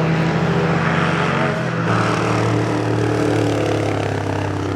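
Classic racing car engine running at high revs as it goes past, its note dropping about one and a half seconds in and then holding steady.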